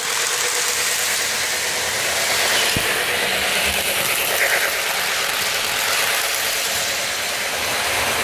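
Electric model train running on metal track close by: the steady rattle of its wheels on the rails with a steady motor hum.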